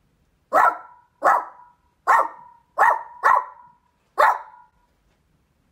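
A woman imitating a dog barking with her voice: six short, loud barks at uneven intervals.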